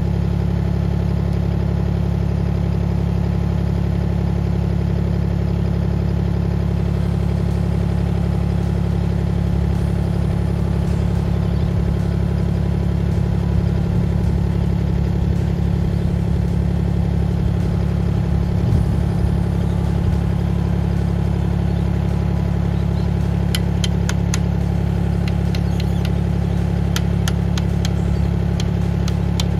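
HAIHONG CTX8010 mini excavator's engine running steadily, with a cluster of sharp clicks near the end.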